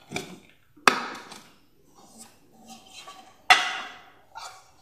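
Two sharp knocks, about a second in and again near three and a half seconds, from a metal cake tin and plate hitting the worktop as a baked cake is turned out of the tin onto the plate, with quieter handling noise between.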